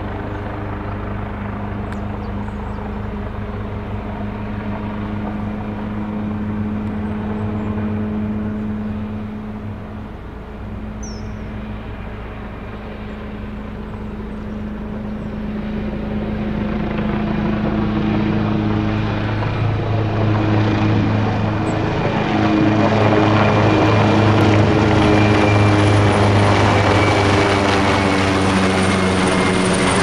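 Leonardo AW139 twin-turbine helicopter climbing after take-off, its rotor beat and turbine whine running steadily. The sound dips slightly about a third of the way through, then grows steadily louder as the helicopter comes in and passes overhead near the end, the whine sharpening.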